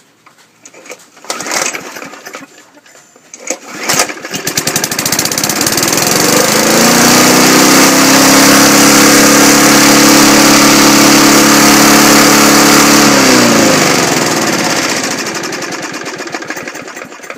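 Briggs & Stratton 3.5 HP single-cylinder push-mower engine being recoil-started. It catches about four seconds in, revs up and runs steady at a high speed for several seconds, then winds down near the end. It is revving too high, a fault with the governor, which the owner traces partly to the stop wire fouling the throttle.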